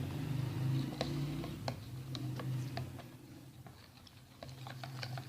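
A utensil stirring a thick yogurt and gram-flour batter in a bowl, clicking against the bowl at irregular intervals, over a steady low hum.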